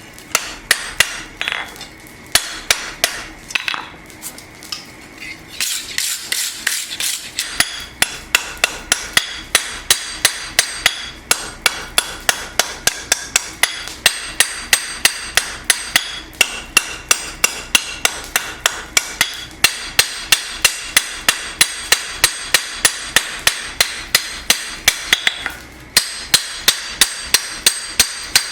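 Blacksmith's hammer striking hot steel on an anvil to forge a knife blade: a few spaced blows, then from about five seconds in a steady run of about three blows a second, each with a short metallic ring.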